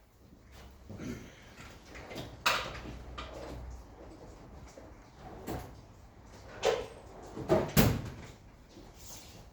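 Handling noises while a measuring tape is fetched: a low rumble of movement and four separate sharp knocks and clunks, the loudest near the end.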